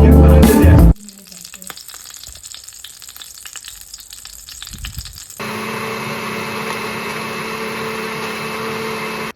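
Vegetable stir fry sizzling and crackling in a hot pan, after a second of background music; from about five seconds in the sizzle turns into a louder, steadier hiss with a low hum, and it cuts off suddenly at the end.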